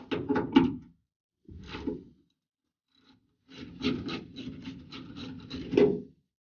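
A 1/4-inch drive tool with a T30 Torx bit turning out the screws of a van's rear door lock. It makes rapid, regular clicking and scraping in three spells, the longest near the end.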